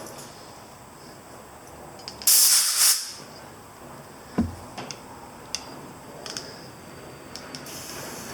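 A compressed-air blow gun gives a short, loud hiss lasting well under a second, about two seconds in, as air is blown under a rubber hand grip to slide it along the motorcycle handlebar. A dull knock follows about two seconds later, with a few light clicks of handling.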